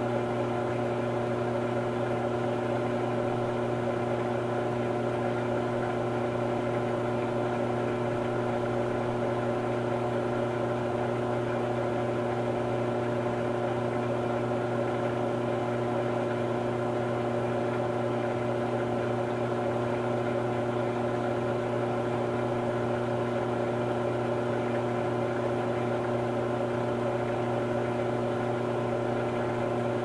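Electrolux Premium Care 13 kg (LWI13) washing machine in its final spin, running with a steady hum at a constant pitch.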